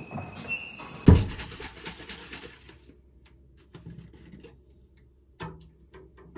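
A heavy thump about a second in, followed by scattered light clicks and taps of objects being handled.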